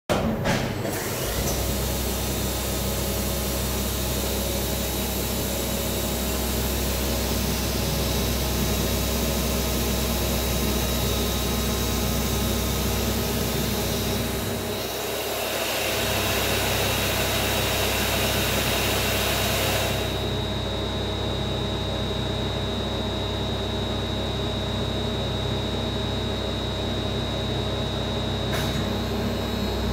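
Grawostar CNC Master machining centre running steadily, with a low hum and a constant thin high whine. A loud hiss over the upper range stops about two-thirds of the way through.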